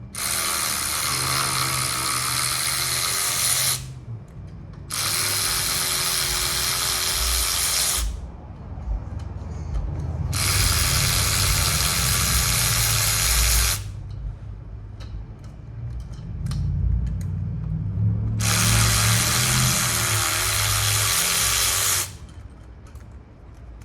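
Cordless power tool running in four bursts of three to four seconds each while bolts are run out of a 6.0 LS V8, its motor pitch wavering under load. Quieter clatter and knocks of handled parts come between the bursts.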